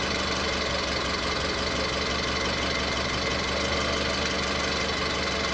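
Car engine idling steadily with a misfire, which the owner later traces to cylinder 3.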